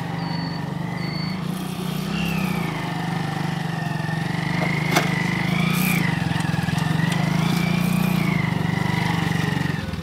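Motorcycle engine running steadily at low speed, with a thin wavering high tone above it and a single sharp click about five seconds in.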